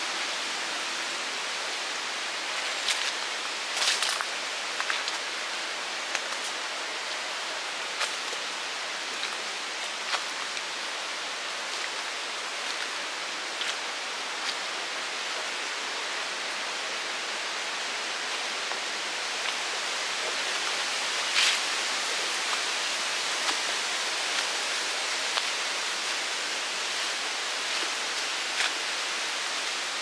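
Steady, even hiss of rainforest ambience, with a few short crackles of footsteps on dry leaf litter.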